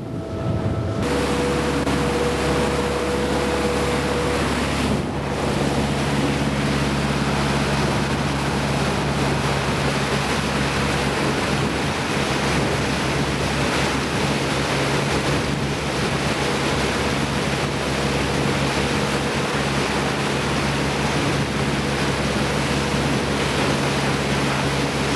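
Motorboat under way: a steady engine drone under the rush of water and wind buffeting the microphone.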